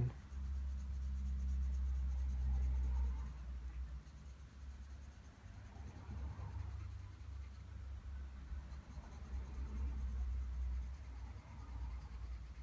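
Graphite pencil shading back and forth on drawing paper: a soft, scratchy rasp that swells and fades with the strokes, over a low rumble that is strongest for the first three seconds or so and again around eight to eleven seconds.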